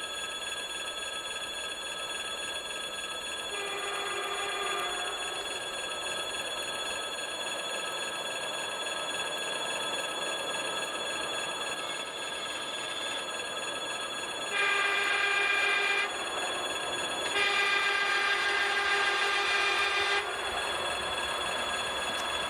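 ED4M electric multiple unit approaching, its running noise slowly growing louder, sounding its horn three times: a short fainter blast a few seconds in, then a blast of about a second and a half, then a longer one of about three seconds.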